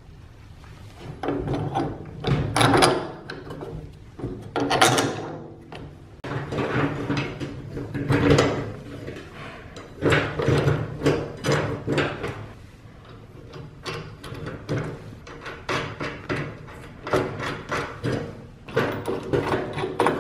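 Steel bolts, washers and nuts being fitted by hand through wooden wheelbarrow handles and the wheel's axle bracket. The sound is irregular clicks, rattles and knocks of metal hardware against metal and wood, coming in short clusters.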